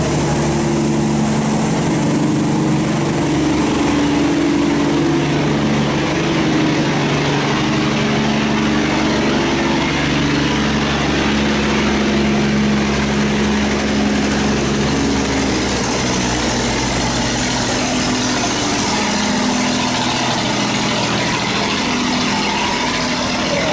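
Boat engines running as a cargo boat and a loaded sand barge motor through a sluice gate, over a steady rush of fast water pouring through the gate opening. The engine hum weakens after about fifteen seconds as the boats move off.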